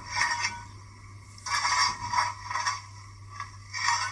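Hornby W1 model steam locomotive, standing still, giving several short steam-like hissing bursts every second or two over a steady low hum.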